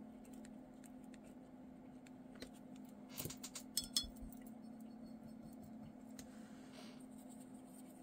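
Quiet desk handling sounds: a pen writing a label on sketchbook paper, with a few light clicks about three to four seconds in, over a steady low hum.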